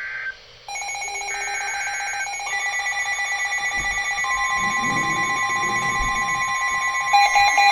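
Emergency Alert System tones for a tornado warning: a short data burst, then several steady alert tones overlapping and building up, with a fast pulsing beep joining near the end.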